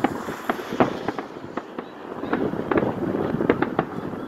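Aerial fireworks going off: a rapid, irregular run of sharp pops and bangs.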